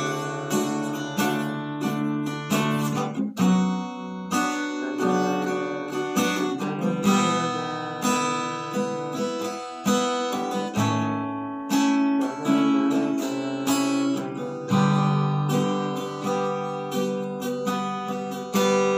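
Acoustic guitar played solo, picked and strummed chords in a steady rhythm with the notes left ringing.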